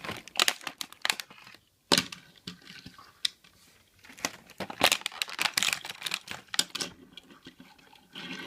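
Plastic packaging crinkling and crackling as it is handled, in irregular sharp snaps, the strongest about two seconds in and around five seconds in.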